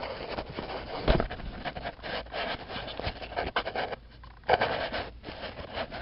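Hurried rustling, scraping and light knocks of things being handled at close range, with a short lull about four seconds in.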